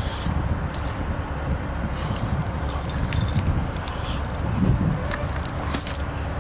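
A bunch of keys jingling in hand in several short bursts, strongest about three seconds in and near the end, over a steady low rumble.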